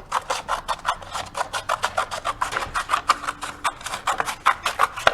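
Scissors cutting through a paper plate in quick, repeated snips, several a second.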